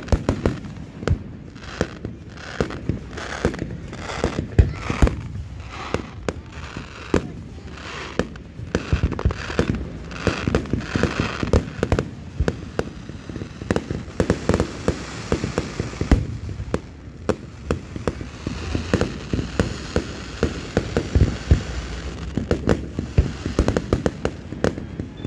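Fireworks going off in quick succession: a rapid, continuous string of bangs, several a second, with a dense crackle joining in about halfway through.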